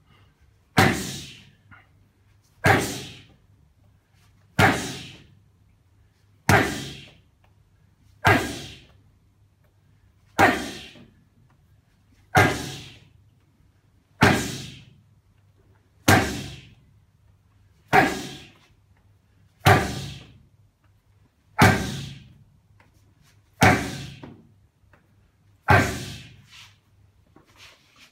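Punches landing on hand-held focus pads, one sharp slap about every two seconds, about fourteen in all, each with a short echo.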